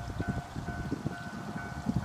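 Wind buffeting the microphone in uneven low thumps, over a distant railway level-crossing bell ringing in even pulses a little over twice a second.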